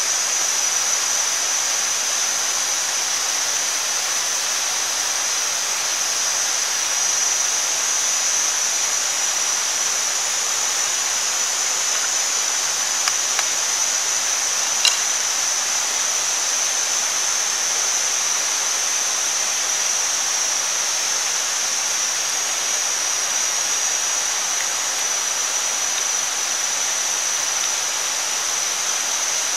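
Steady sizzling hiss of pork, onion and egg frying on a fire-heated stone, with a few small clicks near the middle.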